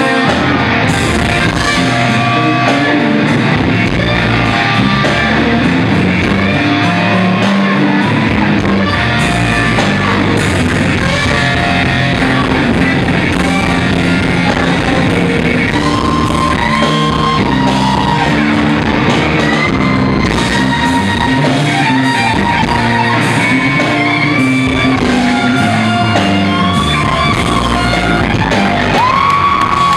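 Live rock band playing: an electric guitar leads with long held, bending notes over keyboards and the rest of the band.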